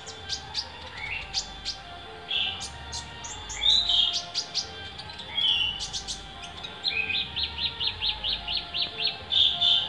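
Olive-backed sunbird singing: sharp high chips mixed with short slurred whistled notes, then a quick run of about four chips a second near the end.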